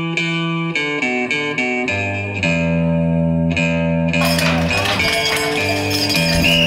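Background music led by guitar, in separate plucked notes; about four seconds in, the music fills out and gets busier.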